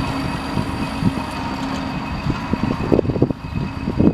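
T-150K tractor's diesel engine idling steadily after standing and cooling a little. From about halfway, irregular knocks and rustles close by come over the engine sound.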